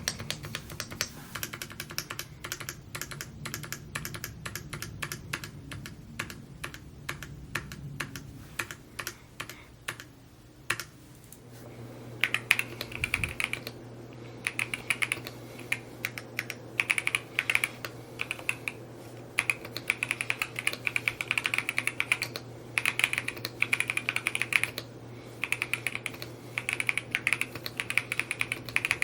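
Continuous typing on a Mode Encore 2 mechanical keyboard, a fast run of keystroke clacks. About eleven seconds in, the typing pauses briefly and then resumes with a brighter, sharper clack.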